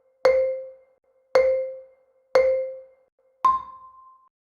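Countdown chime sound effect: three short, identical low pings about a second apart, each fading quickly, then a final ping an octave higher near the end, cueing the start of the clip.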